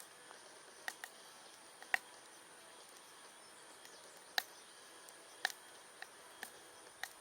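Wood fire crackling: scattered sharp pops, about eight of them at irregular intervals, over a faint steady hiss.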